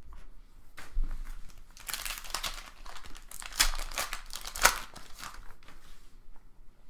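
Crinkling and tearing of a foil trading-card pack wrapper being handled and ripped open, a run of crackles that is loudest in the middle with two sharper crackles.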